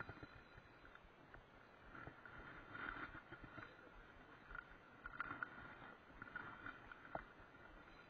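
Faint whir of a spinning reel being cranked, coming and going in short spells, with a few light clicks.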